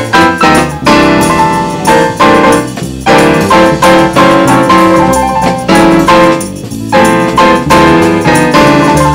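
Piano music: a run of struck notes over chords, played continuously at a steady pace.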